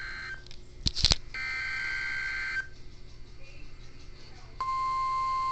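NOAA Weather Radio receiver sounding the digital SAME header of a required weekly test. It plays a warbling data burst, a sharp crackle about a second in, and a second data burst. After a pause near the end, a steady single-pitch warning alarm tone begins.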